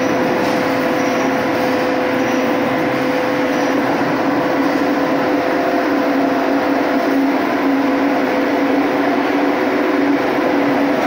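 Steady machinery hum with a constant drone at two pitches, running evenly without a break.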